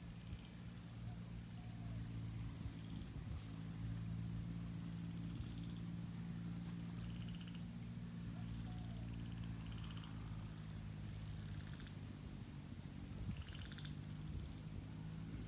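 Rural outdoor ambience: insects trilling steadily at a high pitch, with short, rapidly pulsed frog calls every second or two. A steady low hum lies underneath.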